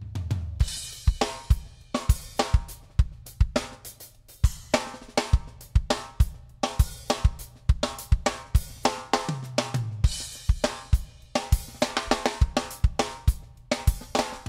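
Background music with a steady drum-kit beat and a deep bass line.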